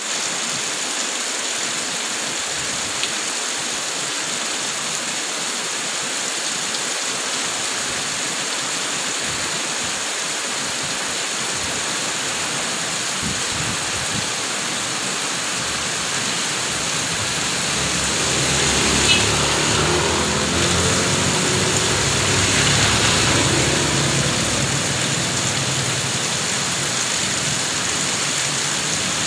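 Very heavy rain: a steady hiss of the downpour together with water pouring off a roof edge and splashing down. A low rumble swells in over the second half.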